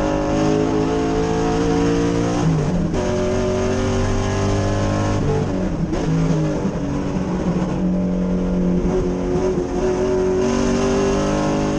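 V8 race car engine at full throttle, pulling through the gears: its pitch climbs steadily and drops back at each upshift, several times over.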